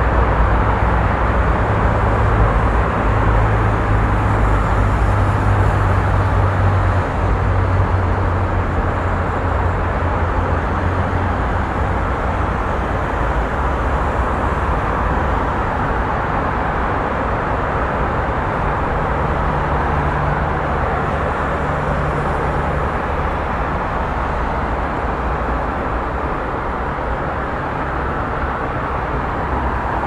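Busy street traffic: a steady wash of passing cars and engine noise. A heavier vehicle's low engine drone stands out close by through the first third, and another low engine hum comes and goes around the middle.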